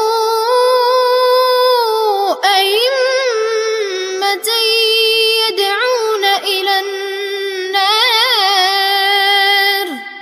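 A boy's voice reciting the Quran in the Warsh narration, chanted melodically with long held notes that waver in trills and ornaments. The voice trails off near the end.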